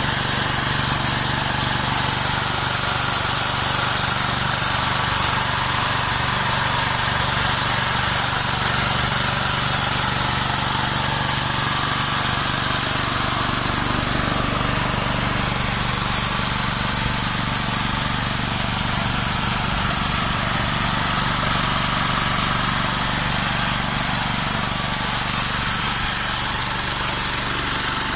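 Portable generator's air-cooled single-cylinder engine, converted to run on bottled gas, running steadily at constant speed.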